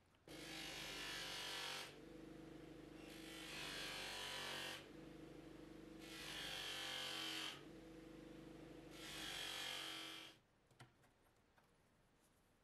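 Bench grinder motor running with a steady hum while a small metal part is pressed against its spinning wheel four times, each contact adding a loud scraping hiss for one to two seconds. The grinder stops suddenly near the end.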